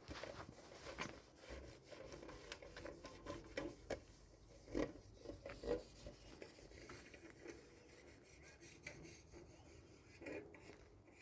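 Faint rubbing and scraping with scattered light knocks, the two loudest about five and six seconds in.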